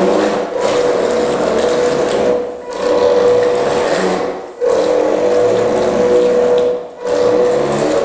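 Twin electric drive motors of a Heng Long Atlantic Yacht RC boat running on hobby-grade speed controllers, with a steady whine as the propellers churn the bathwater. The throttle eases off and picks up again three times: about two and a half, four and a half and seven seconds in.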